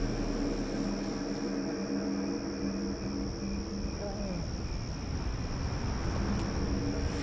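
Steady high-pitched insect chorus over a low hum.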